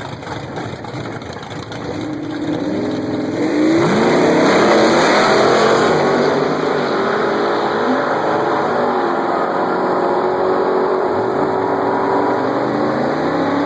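Drag racing vehicle's engine accelerating hard, its pitch climbing and stepping through gear changes, growing loud about four seconds in and staying loud.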